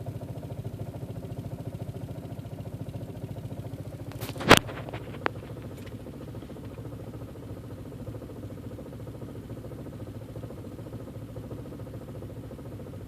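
VW 1.8T four-cylinder turbo engine (AWW engine code) idling roughly, with a steady pulsing beat. About four and a half seconds in there is a loud sharp knock, followed by a smaller click.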